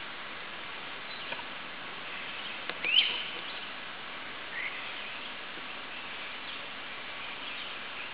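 Steady woodland background hiss, broken about three seconds in by one short, loud chirp that rises sharply in pitch, and a fainter short chirp about a second and a half later.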